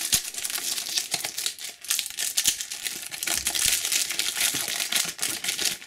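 Trading-card booster-pack wrapper crinkling and tearing as it is ripped open by hand, a dense run of crackles.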